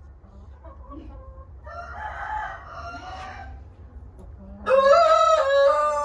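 O Shamo rooster crowing loudly, one long crow starting about two-thirds of the way in, after a fainter bird call a couple of seconds in.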